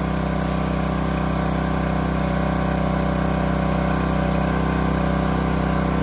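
Gas engine of a Westinghouse 3200 PSI pressure washer running steadily under load, with the hiss of the water jet from the wand hitting the car. The wand is on the soap nozzle, drawing from the onboard soap tank, though no soap has come through yet.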